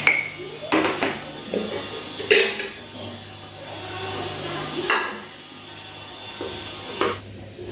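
Knocks and clatters of household containers being lifted off a microwave and set down, a few separate strokes with the loudest about two and a half seconds in.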